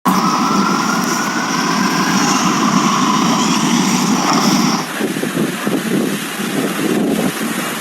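Engine noise with a slowly rising whine, changing suddenly about five seconds in to a lower, fluttering rumble.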